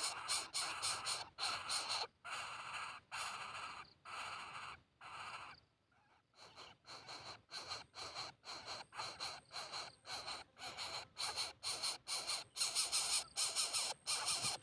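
Coucal chicks begging with repeated harsh, breathy rasps. The rasps come about one or two a second at first, pause briefly about six seconds in, then return quicker, about three a second.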